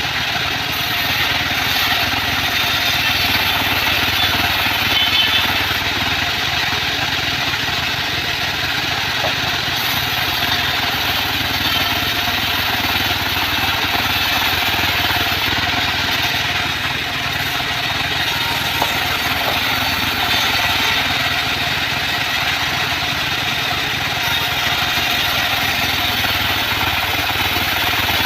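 Band saw mill running steadily while ripping leftover acacia wood.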